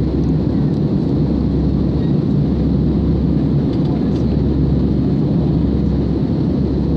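Steady low rumble of an Airbus A320's jet engines and rushing air, heard inside the passenger cabin as the airliner climbs out after takeoff.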